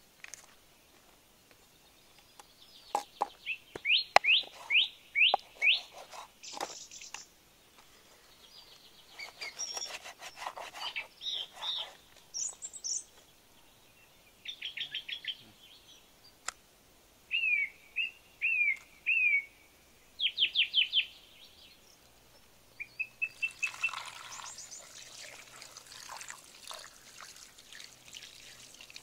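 Birds singing in short runs of quick, sliding notes, repeated every few seconds. Near the end, water pours into a clay pot of cut fish.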